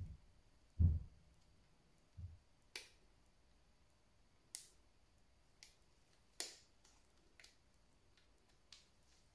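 Small plastic Kinder Surprise toy parts being fitted together by hand: a few dull low knocks in the first two seconds, then about six sharp, separate plastic clicks and snaps spread over the rest.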